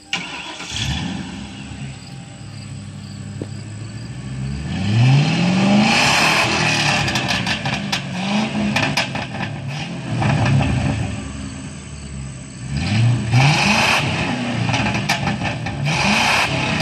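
1999 Mercury Grand Marquis 4.6-litre V8 starting and running through a stock exhaust with all four catalytic converters removed, revved about five times, each rev rising in pitch and dropping back to idle.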